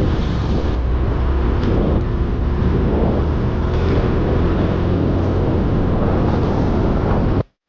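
Steady rumble of a moving vehicle, engine and road noise heavy in the low end, that cuts off abruptly near the end.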